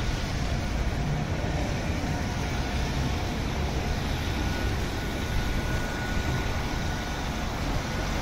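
Steady noise of a moving vehicle, heaviest in the low end, with a faint steady whine over it.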